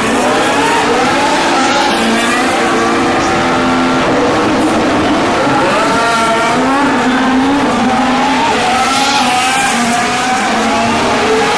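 Several Formula 1 cars' turbocharged V6 hybrid engines accelerating hard from practice starts, their overlapping engine notes repeatedly rising in pitch and dropping back through the gear changes.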